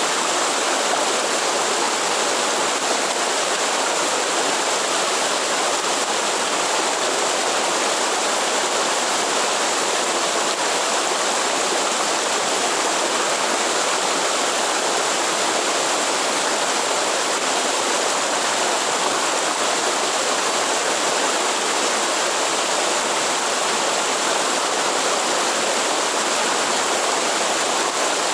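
Waterfall rushing steadily, an even hiss of falling water with no breaks or changes.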